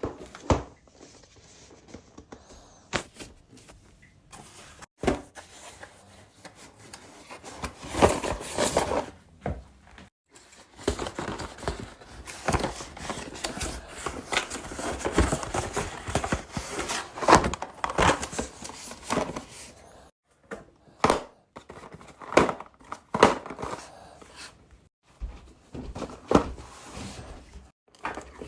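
Unboxing handling: irregular knocks and thuds with stretches of cardboard and plastic packaging rustling.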